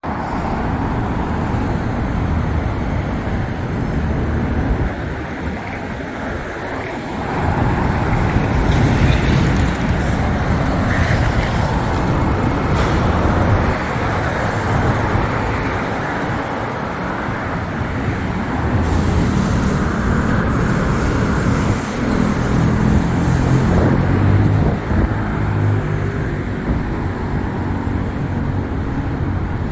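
City street traffic: cars and other vehicles running past in a steady rumble, louder from about eight seconds in.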